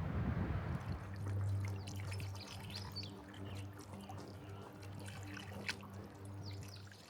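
Birds chirping with short, high calls over a steady low hum; wind noise dies away in the first second.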